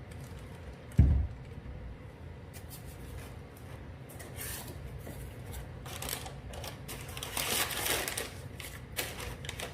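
A single low thump about a second in, then crisp rustling and clicking of packaging and parts being handled, busiest near the end.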